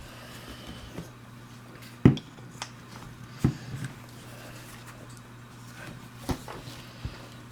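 Wooden grip panels being fitted onto a Llama Comanche III revolver's frame: a few sharp clicks and knocks of handling, the loudest about two seconds in and another about a second and a half later, over a steady low hum.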